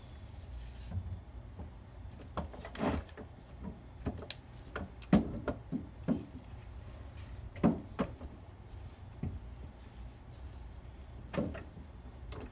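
Irregular light knocks and clicks as a motorcycle fork leg is handled and worked on in a bench vise, the sharpest about five and eight seconds in, over a low steady hum.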